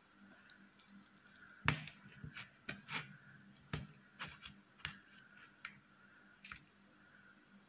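Metal fork cutting and digging into a whipped-cream-frosted cake, making a string of irregular soft taps and clicks, the sharpest about a second and a half in.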